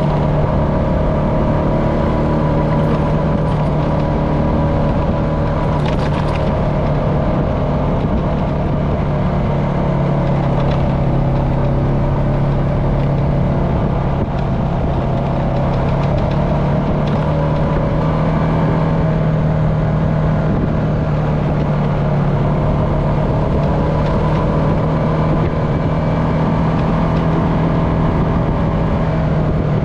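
Honda FourTrax Foreman ATV engine running steadily while riding along a dirt trail. The engine note drops a little about halfway through, then rises again.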